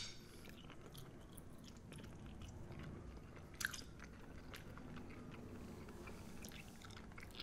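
A person chewing food, faint, with small scattered mouth clicks and one sharper click about three and a half seconds in.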